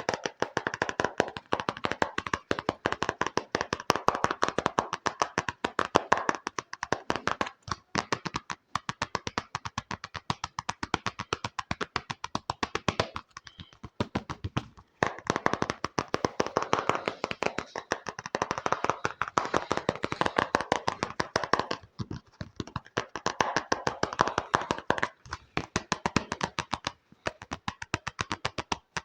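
Fast ASMR finger tapping on an object: runs of rapid, crisp taps, about ten a second, broken by a few short pauses.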